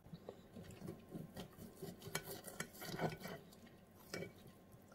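Knife and fork scraping and tapping against a ceramic plate while cutting through braised pork: a soft, irregular string of scrapes and clinks.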